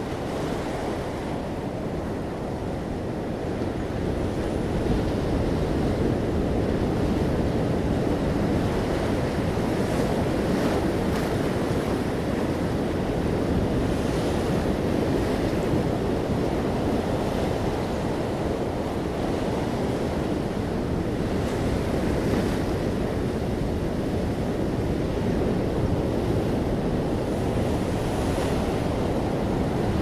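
Ocean surf breaking offshore and washing up a sandy, pebble-strewn beach: a steady, continuous rush of water that swells slightly about four seconds in.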